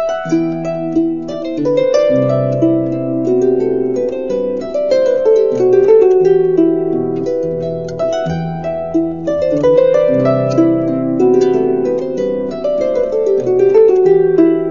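Instrumental music on a plucked string instrument: a flowing run of ringing notes and chords, with no voice.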